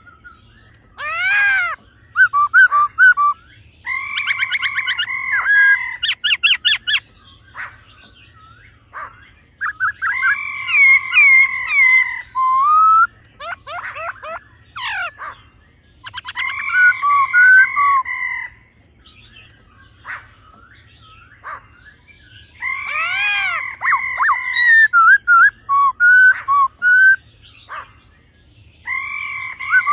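Black-throated laughingthrush singing: loud, clear whistled phrases of looping, rising-and-falling notes and quick note runs, in bouts that come back every few seconds with short pauses between.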